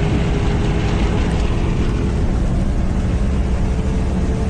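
Steady, loud vehicle rumble: engine and running noise, heavy in the low end, with a faint constant hum above it.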